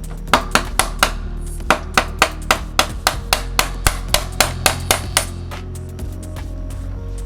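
Hammer striking a bearing punch in quick, steady blows, about four a second, driving the old drive-side bearing out of a carbon BB90 bottom bracket shell. The blows pause briefly near the second mark, then carry on for about three and a half seconds more and stop.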